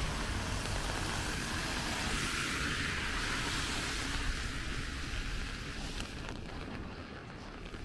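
A car passing on a wet road, its tyre hiss fading away over several seconds as it recedes. Light raindrops tick near the end.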